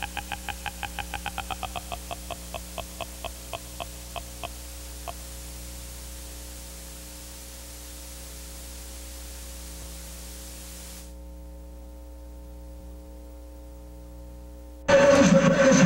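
Steady mains hum and tape hiss on an old videotape soundtrack, with a run of repeated pitched electronic blips, about four a second, spreading out and dying away about five seconds in. The hiss drops out near eleven seconds, and loud music with voices cuts in suddenly near the end.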